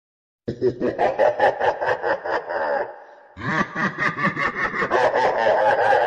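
Laughing in two long bouts of rapid ha-ha-ha pulses, about five a second, with a short break about three seconds in.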